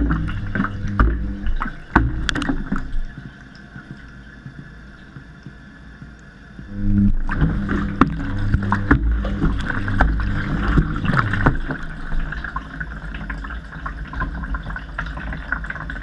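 Front-loading washing machine drum turning during a wash, heard from inside the drum: water and wet laundry sloshing, a low motor hum and repeated knocks as the camera housing and other objects tumble against the steel drum. It falls quieter for a few seconds near the middle, then the tumbling starts up again.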